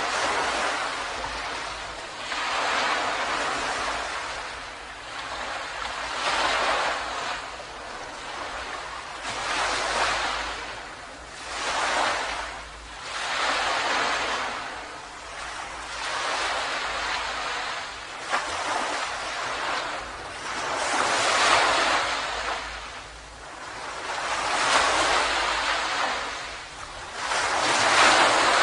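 Ocean waves breaking and washing up a beach, one surge swelling and fading every few seconds.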